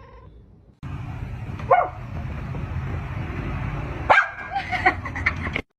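A dog barking: one bark about two seconds in, then several quick barks near the end, over a steady low rumble.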